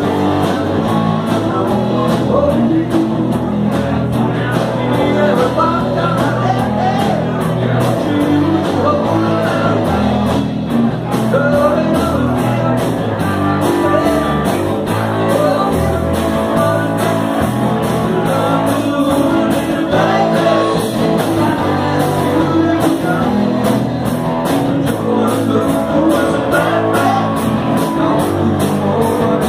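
Live rock band playing loud and steady, with electric guitar, a driving drum beat and a singer.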